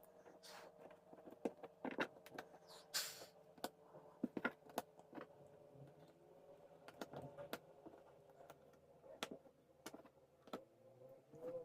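Jigsaw puzzle pieces being handled: irregular small clicks and taps on a tabletop, with a couple of brief rustles, over a faint steady hum.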